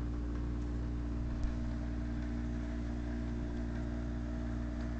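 Steady background hum of a running machine, made of a few fixed low tones, with a faint tap about a second and a half in.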